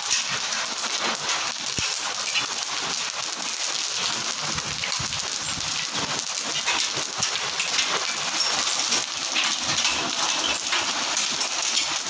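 Hail and heavy rain falling on a paved stone courtyard: a dense, steady patter of many small ticking impacts.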